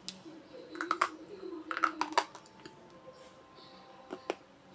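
Slate pencils bitten off and crunched between the teeth: sharp snapping clicks in two quick clusters, about one and two seconds in, and a single click near the end.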